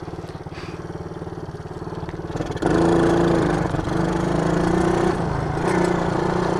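Small single-cylinder engine of a 110 cc ATV quad bike, running at a fast, even, pulsing idle; about two and a half seconds in it suddenly revs up louder and holds a steady higher note.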